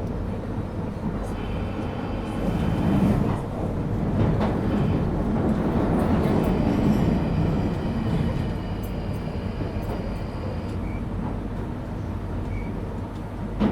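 London Underground Northern line train running through a tunnel, heard from inside the carriage: a steady rumble of wheels and motors that swells and eases, with a thin high whine coming and going above it.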